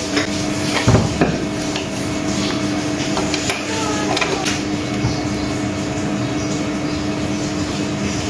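A few light metallic clicks and knocks, mostly about a second in, as a motorcycle engine's oil drain plug is threaded back in by hand after an oil change. A steady hum runs underneath throughout.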